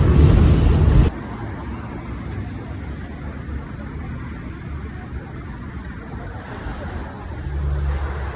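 City street traffic: a loud low vehicle rumble that cuts off abruptly about a second in, then a quieter steady traffic hum, with another vehicle's rumble swelling near the end.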